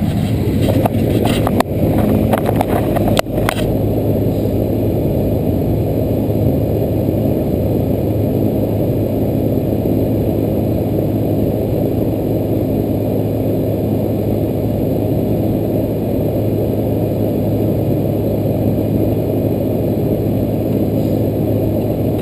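2-ton R-22 air conditioner condensing unit running with a steady low hum, with a few clicks and knocks in the first few seconds.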